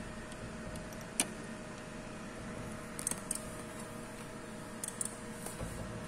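A few sharp, scattered clicks from hand work on the fire alarm panel's screw-terminal block as the printer cable wires are fitted, over a steady electrical hum with two faint steady tones.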